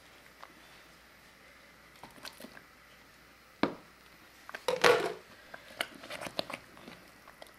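Pieces of cooked beef being added to a thick potato purée in an aluminium pot and stirred in with a wooden spoon. A sharp knock comes about halfway through. A louder wet splat and squelching about a second later is the loudest moment, then scattered knocks and wet squishing follow.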